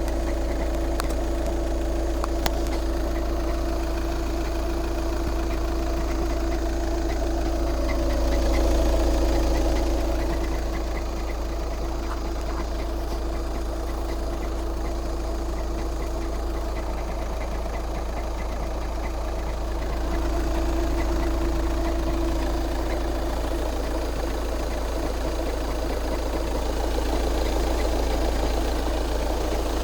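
Skoda Octavia RS 2.0 TDI diesel engine idling with a knock from a worn dual-mass flywheel. The note swells a little a couple of times.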